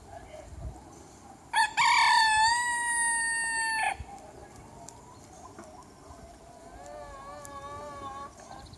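A rooster crows loudly once, a held call of about two seconds that ends abruptly. A few seconds later comes a fainter, wavering drawn-out call from another chicken.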